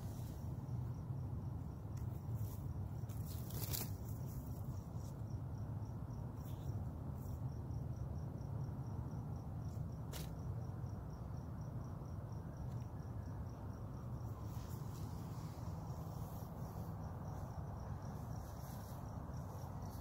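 Crickets chirping, a short high chirp repeating steadily, over a steady low rumble of background noise. Two sharp clicks come about four seconds in and again about ten seconds in.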